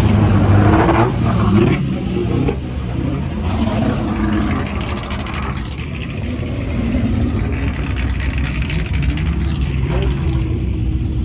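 Several 1960s–70s racing car engines running at low speed as the cars roll past, with throttle blips making the engine notes rise and fall. The sound is loudest in the first couple of seconds.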